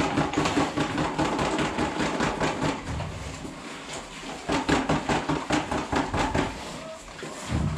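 Pigs feeding at a trough on a wet mash of ground grain: rapid, irregular wet smacking and chomping, with low grunts at times.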